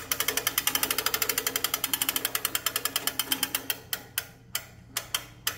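Hand-crank cable winch ratcheting as its handle is turned to wind the steel cable onto the drum under light tension: the pawl clicks over the gear teeth about ten times a second, then slows to a few separate clicks near the end and stops.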